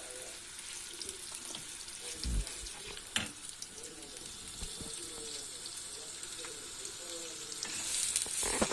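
Thin-cut quince sizzling as it fries in butter in a pan, a steady hiss that grows louder near the end. A low knock about two seconds in and a sharp click a second later.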